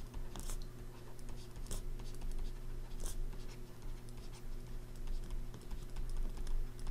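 Stylus tapping and scratching on a pen tablet as words are handwritten: a scatter of light, irregular clicks, a few sharper ones, over a steady low hum.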